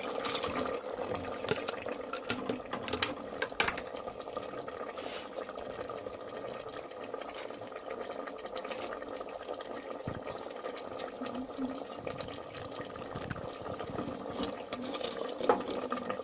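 A pot of stew simmering and bubbling over a steady hum, with scattered light clicks of utensils, more of them in the first few seconds and near the end.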